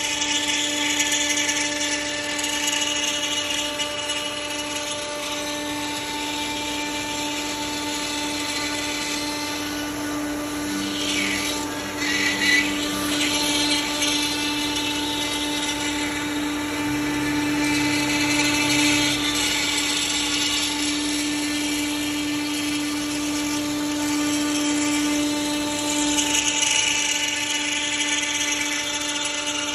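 CNC router spindle running with a steady whine while the bit cuts wood, the cutting noise swelling and easing as the tool moves along its path.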